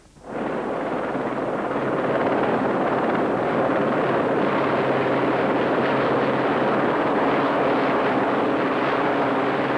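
Westland Sea King HAR3 search-and-rescue helicopter flying past: steady rotor and turbine noise that swells over the first two seconds, then holds.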